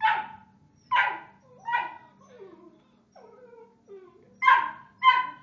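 Dogs making noise in play: five sharp, high barks, three in the first two seconds and two close together near the end, with softer whining grumbles between them.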